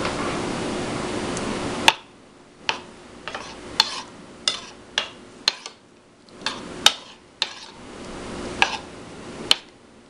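A metal spoon stirs thick peanut sauce in a ceramic bowl, clinking against the bowl's side about a dozen times with soft swishing in between. Before that, a steady hiss is cut off by a click about two seconds in.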